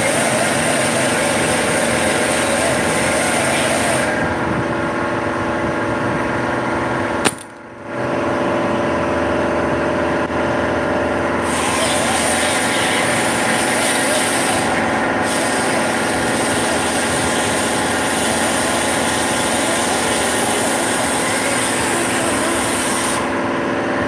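Ford F-150 pickup truck engine idling steadily. The sound cuts out sharply for about half a second around seven seconds in, then resumes.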